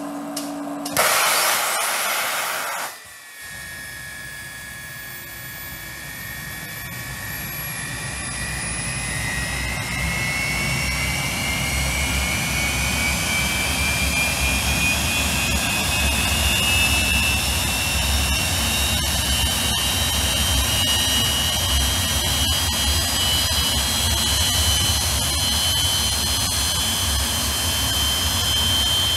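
Rolls-Royce Avon turbojet started by its cartridge starter: about a second in the cartridge fires with a loud rushing blast that lasts about two seconds and cuts off, then the engine's whine rises slowly in pitch as it spools up, with a deep rumble building to a steady loud run.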